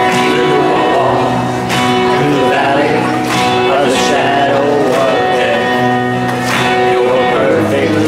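Live praise-and-worship band music: held chords with steady drum and cymbal hits, and a singing voice weaving over them in the middle.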